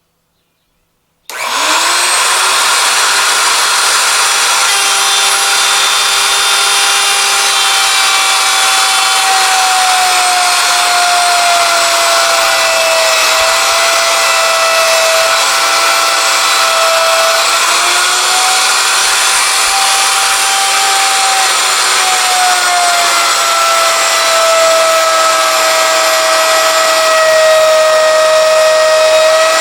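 Electric router starting up with a sudden rise about a second in, then running loud and steady as it cuts a dado across a board in a router jig. Its whine wavers and sags in pitch now and then as the bit takes load in the wood.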